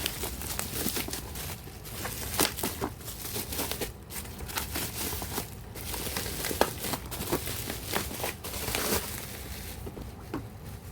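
Plastic packaging of a Figma action figure being handled, crinkling with irregular clicks and crackles that thin out near the end.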